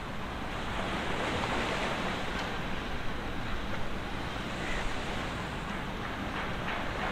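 Steady rush of wind and water, with wind buffeting the microphone.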